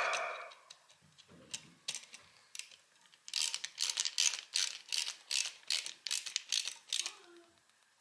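A screwdriver turning a terminal screw on a three-prong electrical outlet to fasten the wires, heard as a run of quick light metallic clicks and rattles, about three or four a second, from a little before the middle to near the end.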